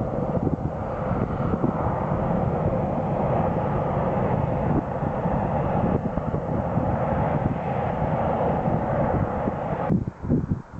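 Jet airliner's engines running loudly as the aircraft passes, a steady rush with a low rumble and wind buffeting on the microphone. The sound cuts off abruptly near the end.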